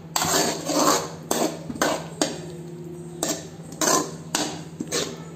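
Steel spoon stirring a wet masala gravy in a metal kadai, scraping and knocking against the pan about every half second.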